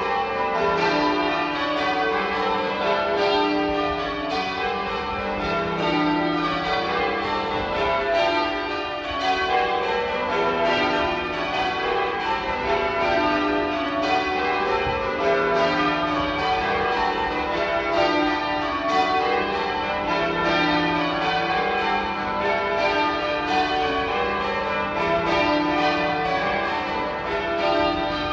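Cathedral tower bells in full-circle change ringing: a ring of bells struck one after another in a steady, unbroken run of changes, each bell's note overlapping the next.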